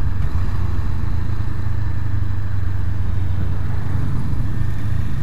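Honda CB500F parallel-twin engine running steadily at riding speed, heard from the bike itself, with wind rushing over the microphone.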